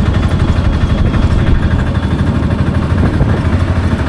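Taxi engine running steadily, heard from inside the vehicle as a loud, rapid low pulsing.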